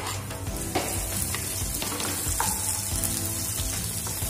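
Chopped garlic, ginger and curry leaves sizzling in hot oil in a nonstick kadai, stirred with a wooden spatula. The spatula gives a few short taps and scrapes against the pan now and then.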